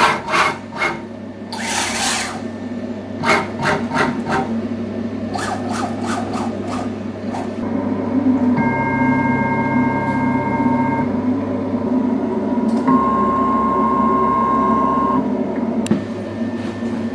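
A CNC machine working over a steady hum. It starts with bursts of rapid clicks and rattles, then makes two moves of about two seconds each with a steady motor whine.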